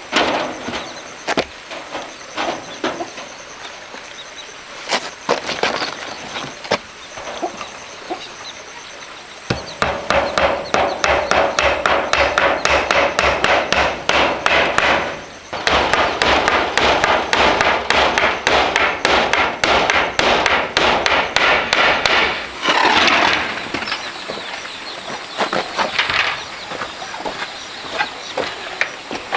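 Repeated hammering blows, scattered at first, then a fast, even run of strikes over a steady low hum for about thirteen seconds, pausing briefly partway through, before thinning out again to occasional knocks.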